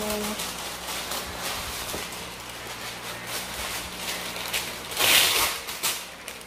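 Parchment paper pulled off the roll in its Glad box, rustling and crinkling, then torn off sharply on the box's cutter edge about five seconds in.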